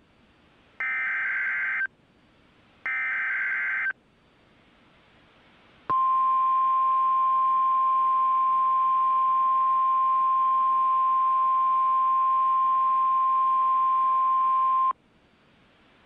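NOAA Weather Radio broadcast opening a Required Monthly Test: two bursts of the SAME digital header, about a second each, then the 1050 Hz warning alarm tone held steady for about nine seconds before it cuts off.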